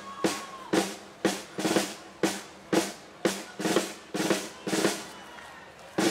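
Parade band drums, snare and bass drum, beating a steady march rhythm of about two strokes a second.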